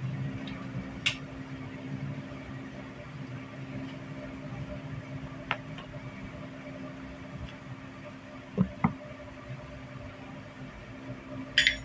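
A steady low hum with a few short, sharp clicks and knocks scattered through it, two of them close together past the middle.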